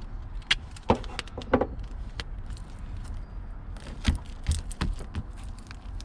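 Irregular clicks, taps and light rattles of small parts and hardware being handled.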